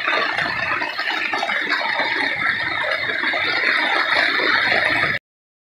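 Heavy rain pouring down on a paved street, a steady hiss that cuts off suddenly about five seconds in.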